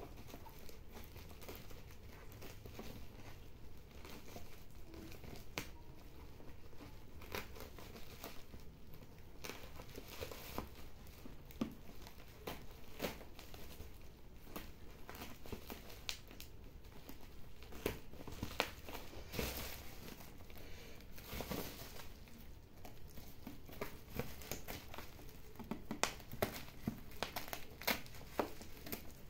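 A parcel's plastic shipping wrap being cut, torn and peeled back by hand: irregular crinkling and rustling with many short, sharp crackles, and bubble wrap handled near the end.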